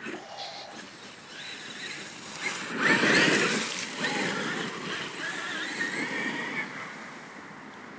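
Brushless Traxxas E-Revo RC truck driving through dry fallen leaves and gravel, its tyres throwing up a rustling spray that is loudest about three seconds in. Toward the end the electric motor's high whine rises slightly, then fades as the truck moves off.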